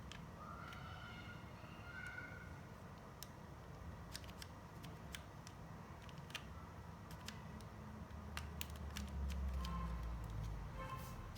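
Scattered sharp clicks of LEGO plastic pieces being handled, over a steady low hum. Short high pitched tones sound near the start and again near the end.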